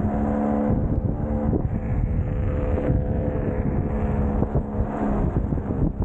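Heavy wind buffeting the microphone, over a steady electric whine from the Kingsong S22 Pro electric unicycle's hub motor as it rides.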